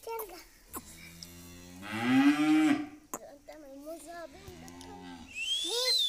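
Cow mooing: one long, loud moo that swells in its middle, then a second, quieter low call. Near the end comes a short high call that sweeps sharply upward.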